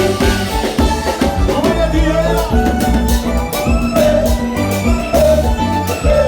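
Loud dance music with a steady beat, bass and a sung or melodic line.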